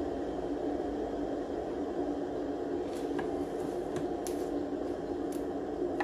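Leafy greens being picked and snapped off their stems by hand, a few short crisp snaps and rustles in the second half, over a steady background hum.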